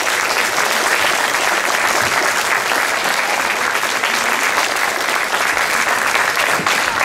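Audience applauding steadily, dense clapping.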